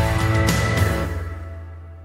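Background music ending: a last drum hit about half a second in, then the final chord rings out and fades away.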